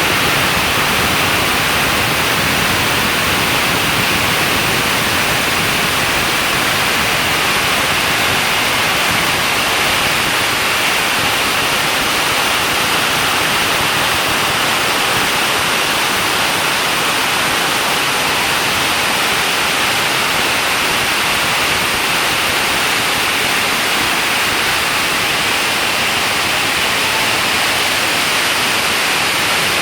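Hailstorm with heavy rain pelting down, a loud, steady, dense hiss that does not let up.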